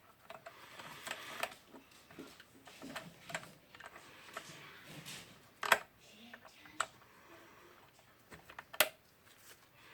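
Carbon brushes being fitted into the brush holders of a Hilti DCG 230-D angle grinder: quiet handling and rustling with a few short, sharp clicks, the clearest about halfway through, a second later, and near the end.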